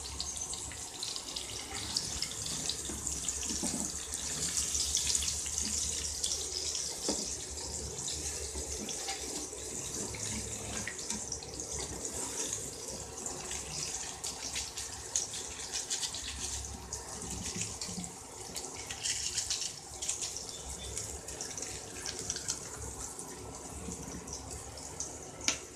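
Hot oil sizzling and crackling in a kadai as a tempering of garlic, dried red chillies, curry leaves and mustard seeds fries, with a wooden spatula stirring now and then. A low steady hum runs underneath.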